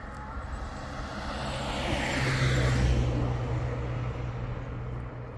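A motor vehicle passing: its engine and road noise swell to a peak about halfway through, then fade, with a steady low engine hum underneath.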